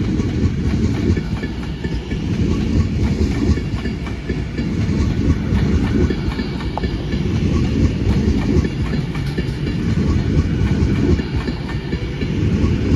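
Avanti West Coast passenger train passing through the station, a steady loud rolling noise of its wheels on the rails.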